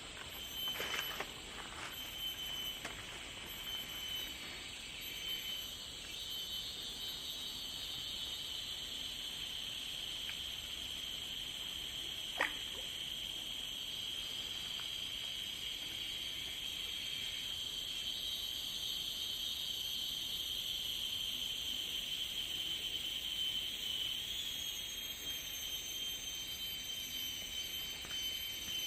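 Steady, high-pitched chorus of tropical forest insects droning without a break, with a single sharp click about twelve seconds in.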